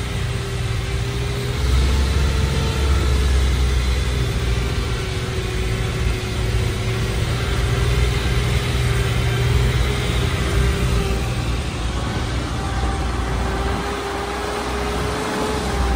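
UAZ-469B off-roader's four-cylinder petrol engine running steadily at low speed, heard from inside the cab while driving over dirt tracks, with a steady whining tone over the low rumble.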